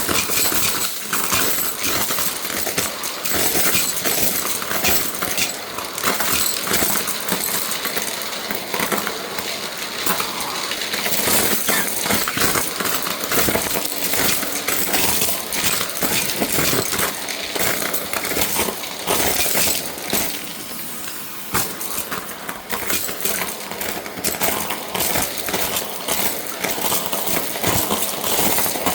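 Shark vacuum cleaner running and sucking up small hard debris, which rattles and clicks steadily as it is pulled through the cleaner.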